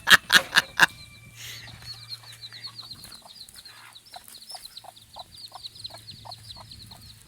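Chickens clucking: a quick run of loud clucks in the first second, then soft, evenly spaced clucks under a fast, high-pitched chirping.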